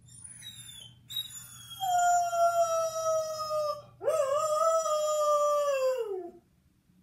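Borzoi howling: a brief thin high whine, then two long howls, the second beginning about four seconds in with a quick upward slide. Each howl sags slowly in pitch, and the second drops away at the end.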